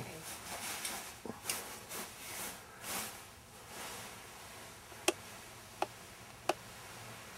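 Soft swishing rustle of a full ball gown's skirt, tulle and petticoat over a hoop skirt, as the wearer moves, in the first three seconds. Then three sharp clicks about two-thirds of a second apart near the end.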